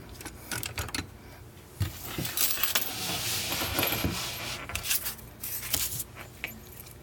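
Metal clicking and clinking as a heavy Schlage padlock and small tools are handled to start taking the padlock apart, with a longer stretch of rustling and scraping in the middle.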